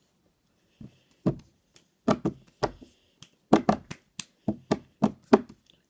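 A series of about a dozen sharp knocks and taps at an irregular pace, starting about a second in, some in quick pairs.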